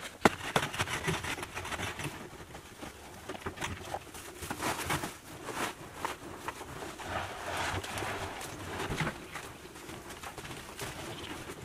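Loose dirt being scraped, scooped and shuffled with hand tools and a woven basket, with one sharp knock just after the start.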